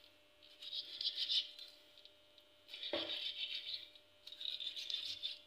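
A knife scoring deep cuts into raw chicken leg pieces: three slicing strokes, each about a second long with a scraping, rasping sound, the second beginning with a light knock.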